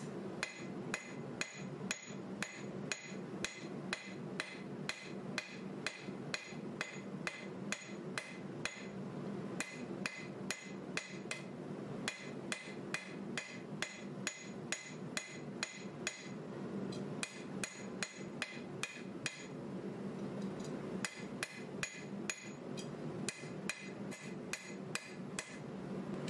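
Hand hammer forging a red-hot 1095 steel knife blank on an anvil: a steady run of blows, about two to three a second, each with a bright metallic ring, broken by a few brief pauses.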